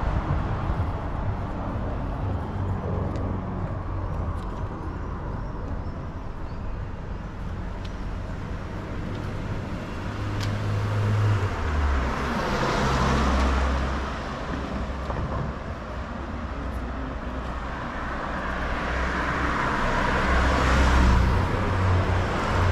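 Street traffic: a steady low rumble of engines and tyres, with two cars passing by, one about twelve seconds in and another around twenty seconds in, each swelling and fading away.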